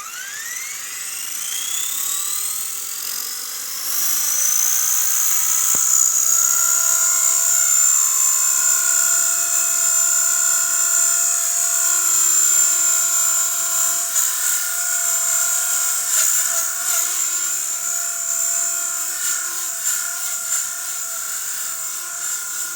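Blade 180 CFX micro RC helicopter's electric motor and rotor spooling up in a rising whine over the first five or six seconds, then running at a steady high-pitched whine in flight.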